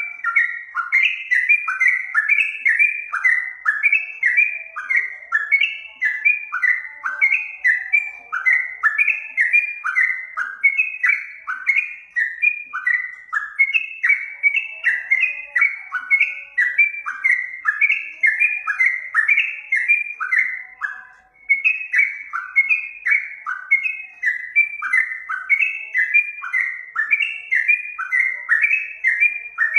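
Yellow-vented bulbul (trucukan) singing: a fast, continuous string of short bubbly chirps, each falling in pitch, with only a brief break about two-thirds of the way through.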